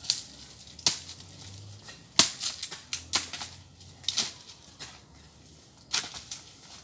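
Dry bamboo and brush cracking and snapping as a man handles the pile, with about eight sharp cracks at irregular intervals.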